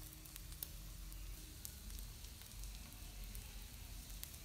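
Sausages sizzling faintly on a hot griddle plate, a steady hiss with scattered small crackles.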